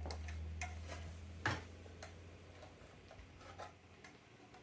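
Scattered light clicks and taps of a plastic telephone housing being handled and fitted, the sharpest click about a second and a half in, over a low hum that fades out at about the same time.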